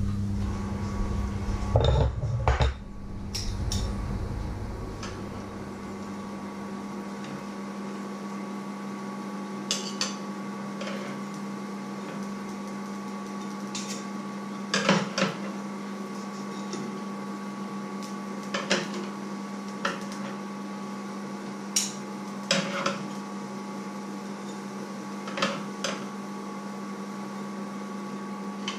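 Metal cutlery clinking and scraping against a china plate and a metal baking tray as roast potatoes are served, with a sharp clink every few seconds over a steady low hum. There are louder knocks and a rumble in the first few seconds.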